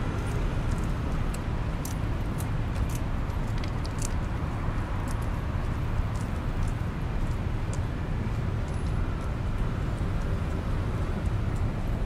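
Steady hum of city road traffic on a busy multi-lane street, cars passing continuously with no single vehicle standing out, and scattered faint sharp clicks.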